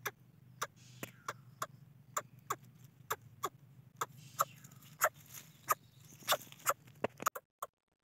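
A downy nestling bird that has fallen from its nest calls from the ground in short, sharp clicking cheeps, about two a second, each a quick downward sweep. A steady low hum runs under them and cuts out near the end.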